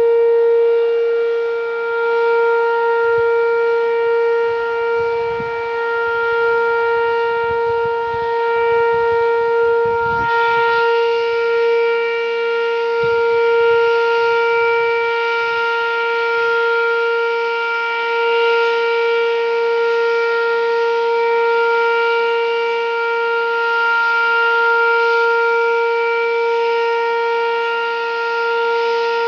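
Whelen 2805 electronic outdoor warning siren sounding its Alert signal, one steady tone held at a single pitch, the steady alert normally reserved for tornado warnings. Its loudness swells and dips about every six seconds as the speaker head rotates, and wind buffets the microphone with low rumbles through the first half.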